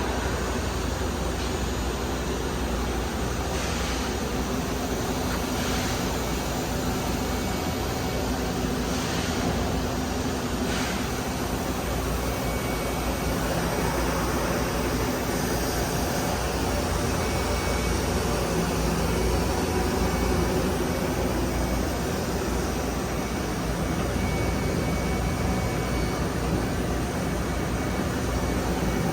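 Mazak Multiplex 6200Y CNC turning center running, a steady mechanical drone with a low hum, and a few faint brief hisses in the first ten seconds or so.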